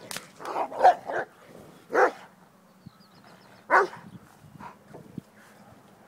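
Komondor barking: a quick run of barks in the first second or so, then single barks about two seconds in and near four seconds, growing quiet towards the end.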